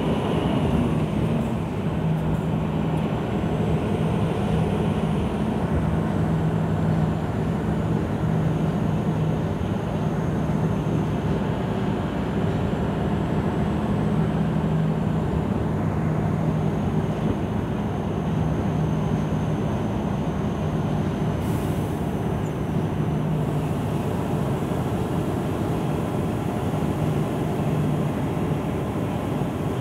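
Scania 164L 580's V8 diesel heard from inside the cab, running at a steady, deep drone on a downhill run. A faint high whistle wavers in pitch and stops about three-quarters of the way through.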